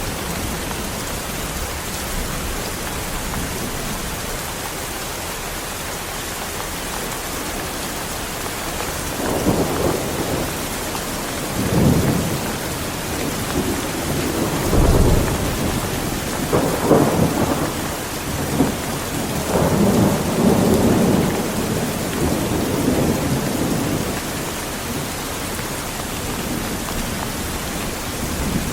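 Heavy rain falling steadily, with thunder rumbling in several rolls through the middle of the stretch.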